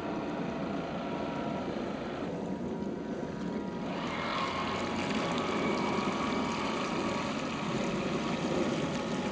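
Radio-controlled model fire boat running at speed: a steady motor whine over the rush of its bow wave and wake, growing louder from about four seconds in as it comes close.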